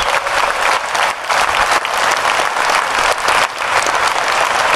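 Audience applauding, many hands clapping without a break.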